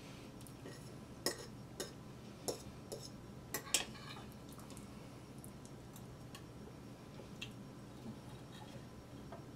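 Fork and knife clinking and scraping against a dinner plate while cutting food: a run of sharp clicks in the first four seconds, then only a few faint ones.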